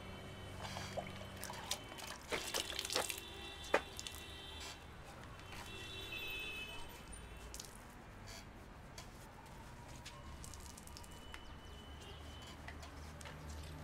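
Water dripping and splashing into a bowl, with a cluster of sharp clinks about two to four seconds in.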